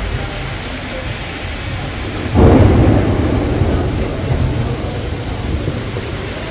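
Heavy rain falling steadily, with a sudden loud clap of thunder about two and a half seconds in that rumbles and fades over the next couple of seconds.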